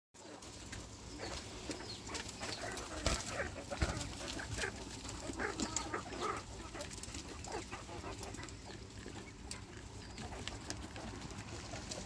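A flock of quail feeding together, keeping up a constant chatter of short overlapping chirps and calls with pecking and scratching in the dry litter. A couple of sharp knocks stand out about three and four seconds in.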